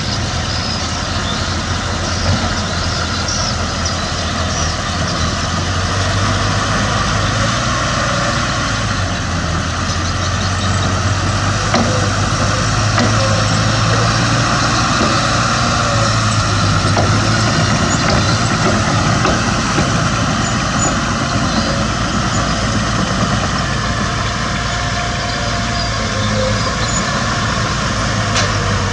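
Heavy diesel engine of earthmoving machinery running steadily with a low, even note that grows a little louder through the middle.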